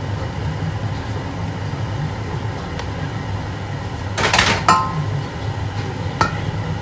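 Stainless steel pan and lid clattering about four seconds in, ending in a short metallic ring, then a lighter clink just after six seconds as the lid is set on the simmering pan. A steady low hum runs underneath.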